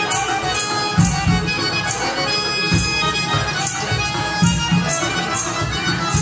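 Instrumental passage of Azerbaijani folk music: a button accordion and a plucked long-necked lute play the tune over percussion keeping a steady beat, with jingling strokes and low thumps about twice a second.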